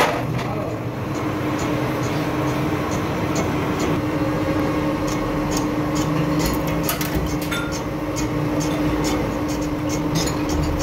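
A workshop machine running steadily with a constant hum, with light metallic clinks and ticks scattered through the second half.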